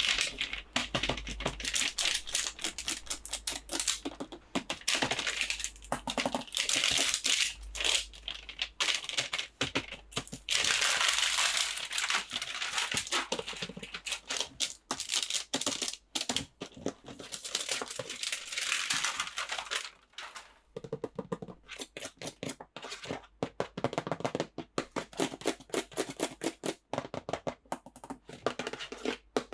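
Packaging crinkling, rustling and tearing as a toy is unwrapped by hand, a dense run of crackles and sharp clicks with a short lull about two-thirds of the way through.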